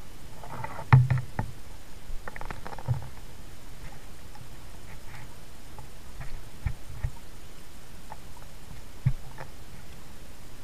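Paddling a plastic sit-on-top kayak on calm water: two short paddle splashes in the first few seconds, the louder about a second in, then scattered light knocks and clicks on the hull.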